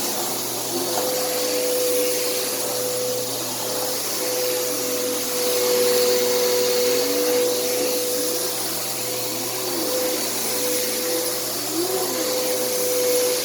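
Bissell CleanView bagless upright vacuum running, a steady motor whine over rushing air, its lower pitch dipping and rising now and then.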